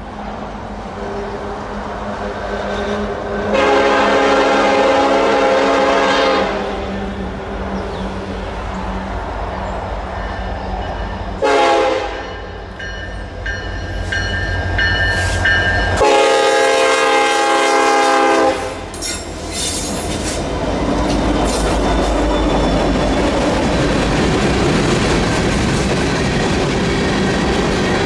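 Norfolk Southern SD70M-2 locomotive sounding its Nathan K5LLA five-chime air horn as it approaches: a long blast, a short blast, then another long blast, over the steady drone of the diesel locomotives. After the last blast the freight train passes close by, with the continuous rumble and clatter of its wheels on the rails.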